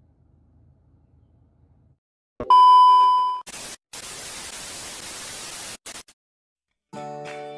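A faint low car-cabin hum, then a TV-static transition sound effect: a loud steady beep lasting about a second, followed by about two seconds of static hiss that breaks off abruptly.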